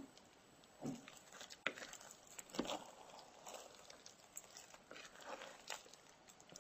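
Rice paddle stirring thick cooked rice mixed with Oreo cookies in a rice cooker's inner pot: faint, irregular soft scrapes and taps.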